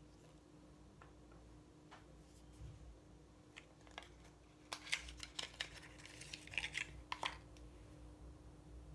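Small sharp clicks and rustles of a mascara being handled and taken out of its printed cardboard box, bunched between about five and seven seconds in, over a faint steady hum.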